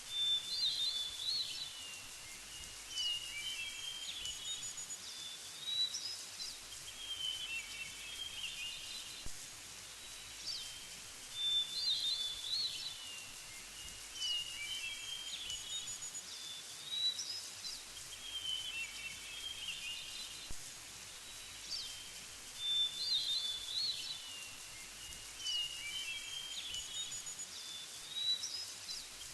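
Birds singing: short phrases of high chirps and trills recur every few seconds over a faint steady hiss.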